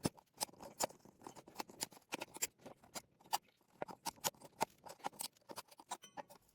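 Plastic cover of a small relay being worked open by hand: a fairly quiet run of irregular small clicks and scratches, several a second.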